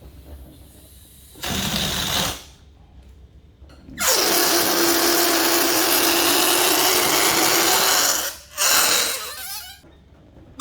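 Air rushing out of metallic balloons as they deflate, in three releases: a short hiss about a second and a half in, a long steady buzzing squeal of about four seconds from around four seconds in, and a shorter wavering squeal near the end.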